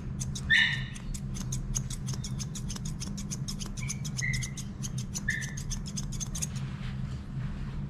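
Grooming scissors snipping a dog's facial hair in a rapid run of crisp cuts, several a second, stopping near the end. The dog gives a short high whimper about half a second in and three more brief whimpers a few seconds later, not liking its chin being held.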